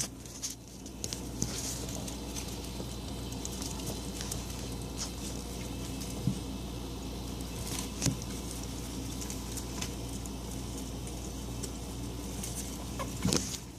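Small rabbits scrabbling and rustling behind a refrigerator: light scattered scratches and ticks, with a few sharper knocks, one about halfway through and the loudest near the end. Under it runs the refrigerator's steady low hum.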